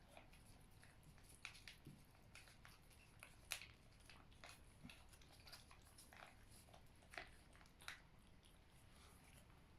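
Faint cat eating a creamy treat: soft, irregular wet clicks of licking and chewing.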